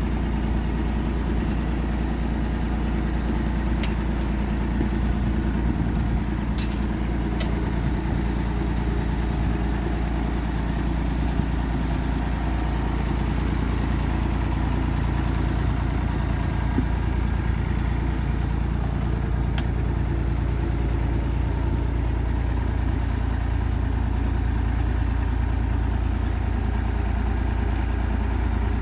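Engine running steadily at idle, with a few sharp clicks.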